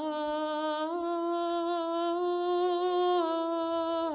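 A single voice singing a slow Byzantine liturgical chant response on long held notes, without clear words. The pitch steps up about a second in and comes back down in steps near the end.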